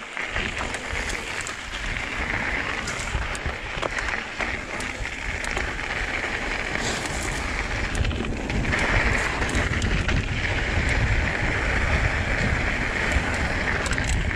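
Wind rushing over the microphone and mountain bike tyres rolling fast over loose dirt and rocks on a singletrack descent, with scattered rattling knocks from the bike.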